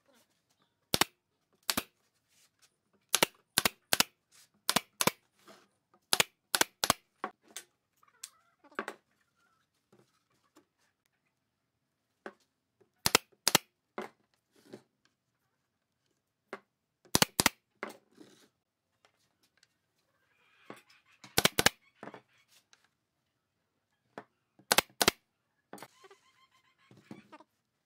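Pneumatic brad nailer firing nails into wood: sharp, short shots, mostly in quick runs of two to four with pauses between.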